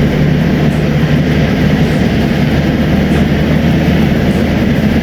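Vehicle driving along a road: a steady engine drone with tyre and road noise, loud and unbroken.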